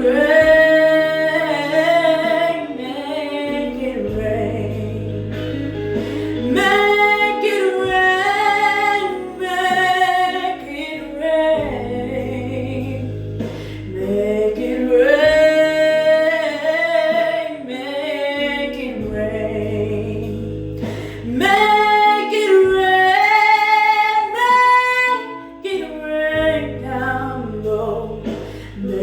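A song: a lead voice singing long, sliding held notes over instrumental backing with guitar and a steady low bass.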